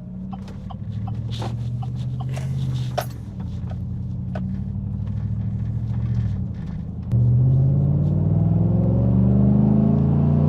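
2016 Chevy Silverado engine through a cheap aftermarket side-exit exhaust, heard from inside the cab while driving. A steady drone rises in pitch as the truck gathers speed, drops back about six and a half seconds in, then steps up louder at about seven seconds and climbs again under harder throttle. A few faint clicks come in the first few seconds.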